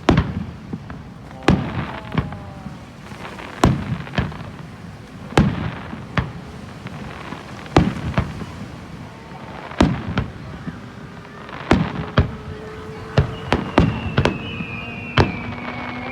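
Aerial fireworks shells bursting over the beach, a sharp bang every second or two, each trailing off in a short echo. Near the end, thin whistling tones glide slowly downward between the bangs.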